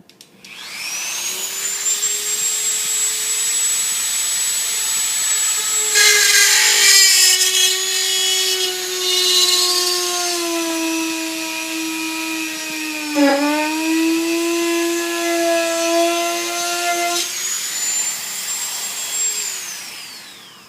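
Electric drill with a 3/16-inch bit spinning up, then biting into the rocket's airframe tube and nose cone shoulder to bore a rivet hole. The motor pitch drops and labours under load for about eleven seconds, dips sharply once partway through, then rises again as the bit breaks through, and the drill winds down near the end.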